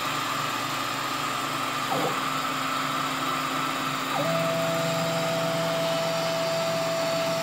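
Benchtop CNC mini mill running, its end mill cutting a layered plywood blank. About four seconds in, a steady higher whine joins as the table feeds the work along.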